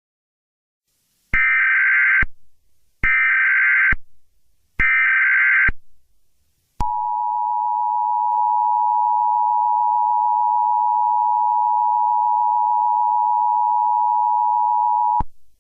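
Emergency Alert System signalling: three short, buzzy bursts of SAME digital data tones, about a second each. Then the EAS attention signal, a steady two-tone alarm (853 and 960 Hz) held for about eight seconds, which marks the start of a new warning message.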